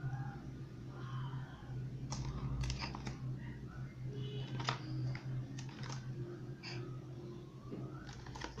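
A small cardboard product box handled in the hands, giving a scatter of light, irregular clicks and taps as the fingers grip and turn it, over a steady low hum.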